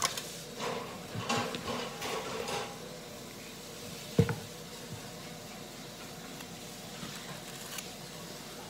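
Kitchen handling at a countertop: a run of scraping and rustling for the first two or three seconds, then a single sharp knock about four seconds in, with a faint steady room background after it.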